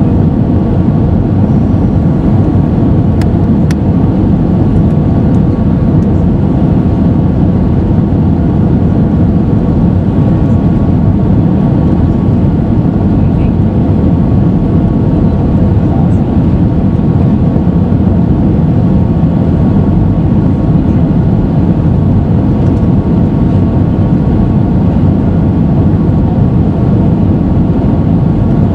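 Steady cabin noise of an Airbus A320-214 descending on approach with flaps extended: a loud, even rumble of airflow and its CFM56-5B engines, with faint steady tones above it.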